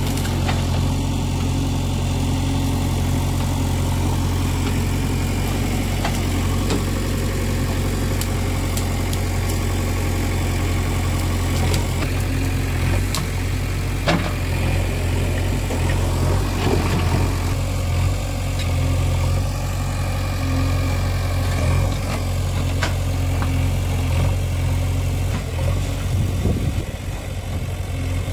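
JCB 3DX backhoe loader's diesel engine running steadily at an even pitch, with a few sharp knocks and clanks scattered through.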